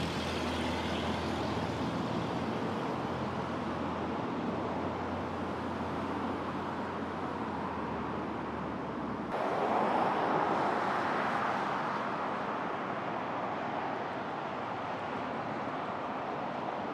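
Steady outdoor road-traffic noise with a low hum under it. About nine seconds in the sound changes abruptly, and a passing vehicle swells up and fades away.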